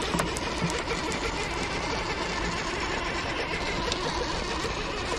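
Radio-controlled 6x6 rock crawler's electric motor and gear drive whining steadily as it crawls over rock, with a few light clicks from the truck on the stone.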